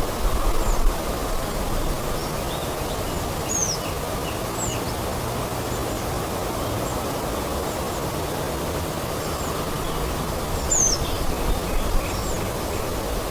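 Forest ambience: a steady rushing noise with small birds chirping, short high calls scattered throughout, a few of them quick downward notes.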